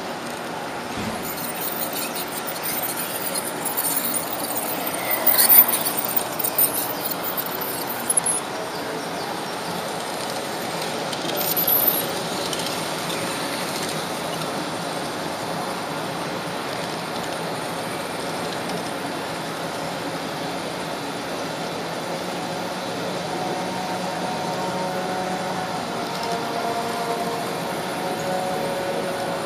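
Model electric train running along the track, heard from on board: a steady rolling noise, with high-pitched wheel squealing for several seconds near the start and once more briefly a few seconds later.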